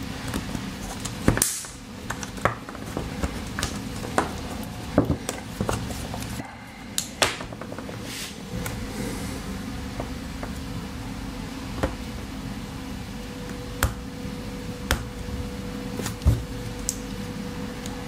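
Small, sharp clicks, taps and scrapes of a metal pick and knife working at a plastic USB-C connector and being handled on a tabletop, coming irregularly and thickest in the first half, over a steady background hum.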